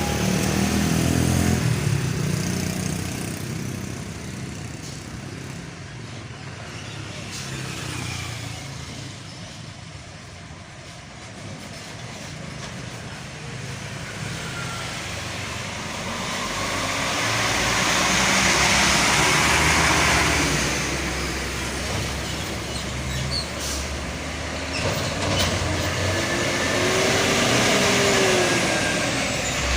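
Trucks and other road vehicles driving past one after another, engines and tyres swelling and fading. The loudest pass comes about two-thirds of the way through.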